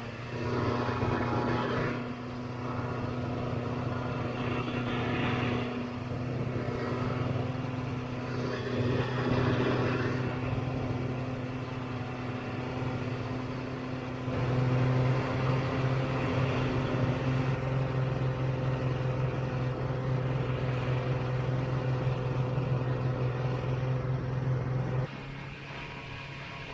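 A vintage Ski-Doo Olympic's two-stroke twin engine runs steadily under way. It grows louder about halfway through, then falls away suddenly near the end as the throttle eases off.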